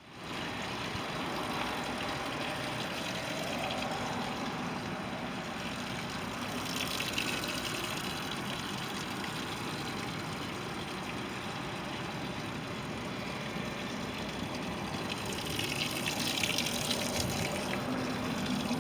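Mercury 125 two-stroke outboard motor running steadily, mixed with churning water, after a stator replacement got it firing again.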